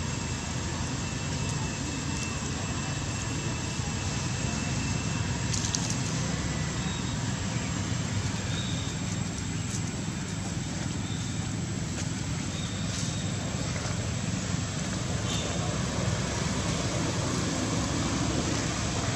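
Steady low outdoor background rumble, with a few faint clicks and several short, faint high chirps in the middle.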